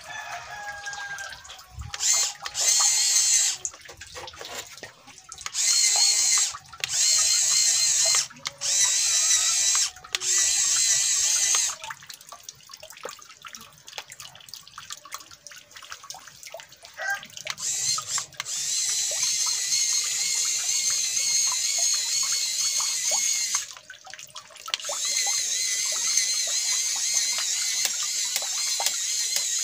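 Small geared DC motor of a homemade RC row boat whining as it is switched on and off from the remote: a run of short bursts of a second or two, then longer steady running with one short break.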